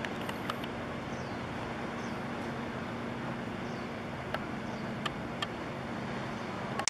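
Steady low engine hum with outdoor background noise, a few faint clicks and faint high chirps. A brief loud rustle near the end.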